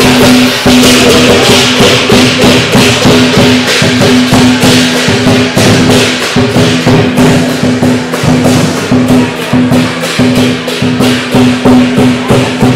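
Loud Chinese dragon dance percussion: clashing cymbals and drum in a fast, even beat, with a steady ringing tone underneath.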